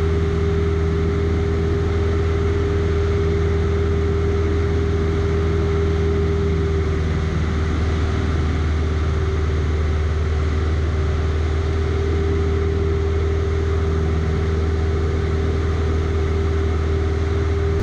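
Grob 115 light aircraft's piston engine and propeller droning steadily in level cruise, heard inside the cockpit, with a constant hum and no change in pitch.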